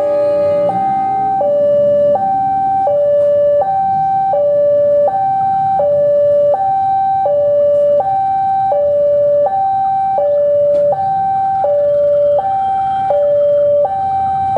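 Electronic two-tone warning alarm sounding a steady hi-lo pattern, switching between a higher and a lower tone about every 0.7 seconds.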